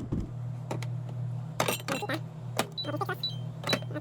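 Food containers and jars being set back onto refrigerator shelves: a handful of separate knocks and clinks, a few with a short high ring, over a steady low hum.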